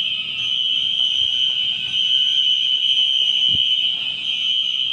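Fire alarm sounding a loud, steady, continuous high-pitched tone during a building fire drill.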